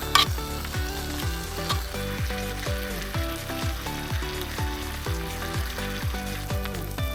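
Bacon sizzling and frying in a pan, with a few sharp clicks at the start, under background music with a steady beat.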